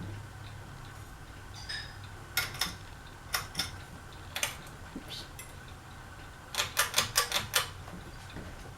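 Sharp clicks and taps from a ceiling fan being handled while stopped for reversing: scattered pairs of clicks, then a quick run of about six clicks near the end.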